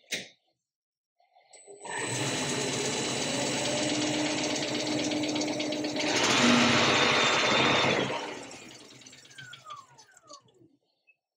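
DACTEM alternator test bench driving a rebuilt Bosch 12 V 110 A alternator during its self-excitation test: the drive motor spins up and runs steadily, grows louder with a higher whine about six seconds in, then shuts off about eight seconds in and spins down with a falling pitch.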